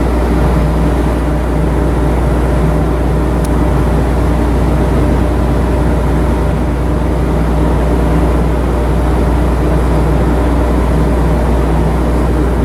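Steady, unbroken drone of a cargo ship's diesel main engine running under way, heard on board, with a deep hum under it.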